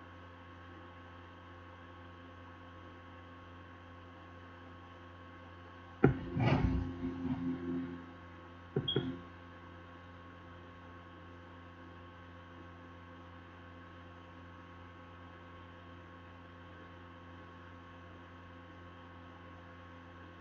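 Steady electrical mains hum. About six seconds in, a sharp knock and about two seconds of clattering handling noise break through, then a shorter clatter near nine seconds.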